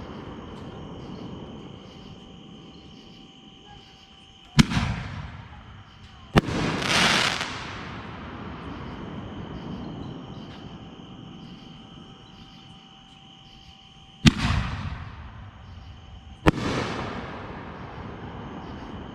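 Consumer artillery-shell fireworks going off one at a time: four sharp bangs in two pairs, each pair about two seconds apart, and every bang trailing off in a rolling echo. Right after the second bang comes a loud hissing crackle lasting about a second and a half. Insects chirr steadily underneath.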